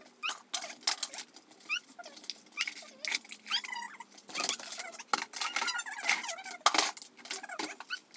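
Small plastic toys clattering into a clear plastic tub: an irregular string of sharp clicks and knocks, with short high squeaks in between.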